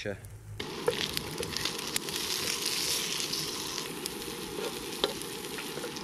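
Bacon and chunks of common puffball mushroom sizzling in a wide metal frying pan, with a few sharp pops and crackles. The sizzle starts suddenly about half a second in.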